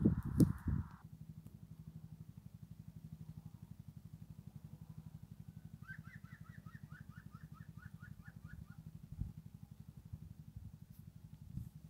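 A few knocks in the first second, then a low, steady motor-like hum pulsing rapidly, about ten times a second. About halfway through, a bird sings a quick series of about a dozen short rising notes.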